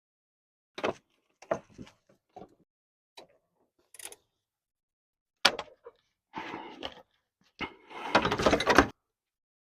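Tools and metal parts knocking and clanking during work on a truck's belt tensioner idler pulley: a string of separate knocks and clacks, then two longer rasping bursts in the last few seconds, the second the loudest.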